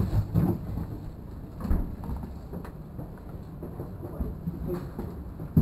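Low rumbling with scattered dull thumps: handling and movement noise from a camera carried by a moving player.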